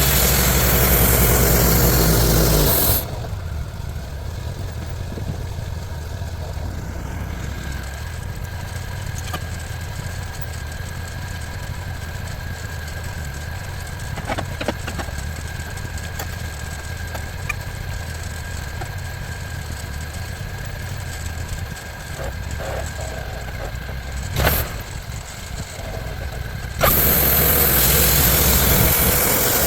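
Sawmill engine running steadily, with two loud, roughly three-second surges, one at the start and one near the end.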